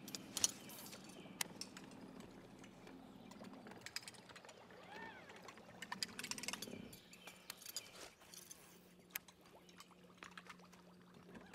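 Faint outdoor ambience on calm water: a steady low hum with scattered soft clicks and ticks, and a short bird call about five seconds in.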